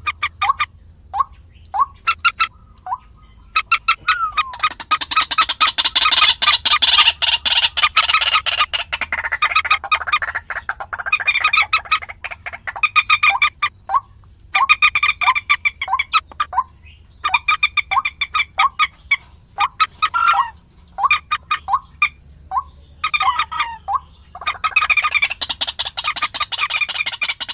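Common moorhen calling: a few separate sharp notes at first, then from about four seconds in dense runs of rapid clucking chatter broken by short pauses.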